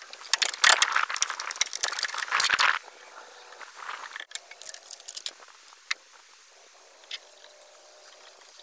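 Metal can of polyurethane wood stain being handled and worked open: about three seconds of dense metallic rattling and scraping. Fainter scrapes and scattered ticks follow as the stain is stirred.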